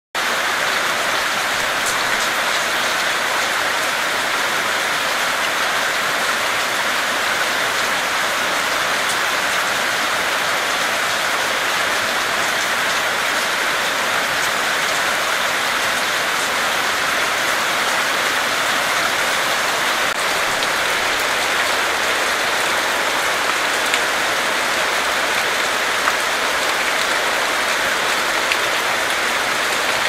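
Heavy rain falling steadily on leafy trees, an even hiss that holds at one level throughout.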